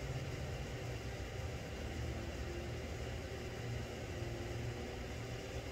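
Steady low hum with an even hiss above it, unchanging throughout, with no distinct events.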